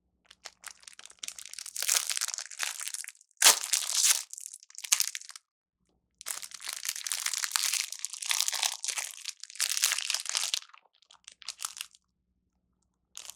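Thin plastic food wrapper crinkling and tearing as it is opened by hand, in two long stretches with a sharp snap about three and a half seconds in.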